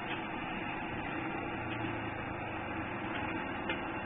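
Charcoal forge fire burning hard with a steady rushing noise as air is driven into it to heat bolo blades.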